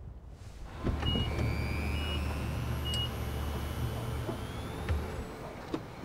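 A car running at low speed, with three short high beeps about a second apart and a faint rising whine. The car's sound stops about five seconds in.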